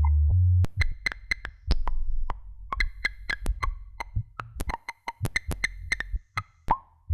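Residual layer of a sinusoidal decomposition of an electronic sample, with the bass line stripped out: a sparse, irregular run of sharp digital clicks and short high blips. A low synth bass note cuts off about half a second in, just before the clicks begin.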